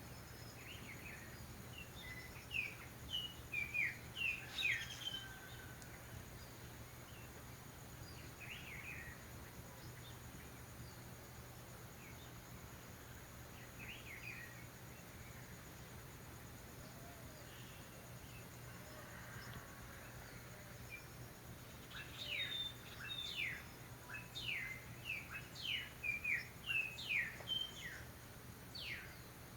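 Calandrias (orioles) calling: quick strings of short, sharp, high notes that fall in pitch. One bout comes a couple of seconds in, a longer and denser run comes near the end, and a few single notes fall between them.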